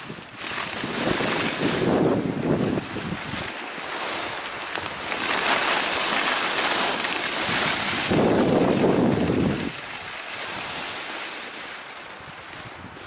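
Wind buffeting the microphone of a hand-held camcorder on a skier going downhill, in gusty rumbles, over a steady hiss of skis sliding on snow. The noise dies down near the end.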